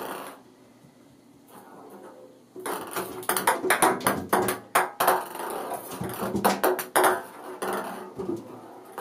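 Ping pong ball bouncing and clicking around an empty bathtub as a kitten bats it. A fast, uneven run of light taps starts about two and a half seconds in and thins out near the end.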